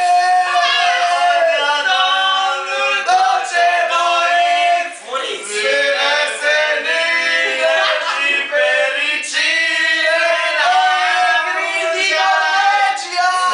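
A small group of male and female voices singing together unaccompanied, holding long notes, with a brief break about five seconds in.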